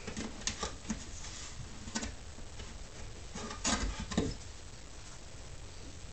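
A small dog rummaging in a wooden crate of plush toys: scattered soft knocks, scuffles and rustles, with a louder cluster of them about three and a half to four seconds in.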